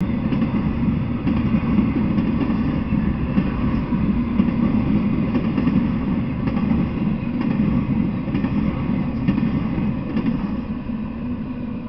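Intermodal freight train with truck trailers on flatcars rolling past, a steady rumble of wheels on rails with faint clicks about once a second. The sound begins to fade near the end as the last car goes by.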